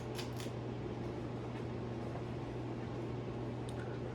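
Emerson 1895 Series 42-inch ceiling fan (model CF3342AB02) running on medium speed: a steady motor hum with the whoosh of the blades. A few light ticks at the very start and one near the end.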